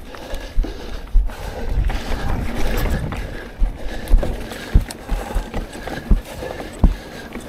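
Mountain bike riding down a dirt forest singletrack: a steady low rumble from the tyres rolling over dirt and leaf litter, with sharp knocks and rattles from the bike over bumps, several of them in the second half.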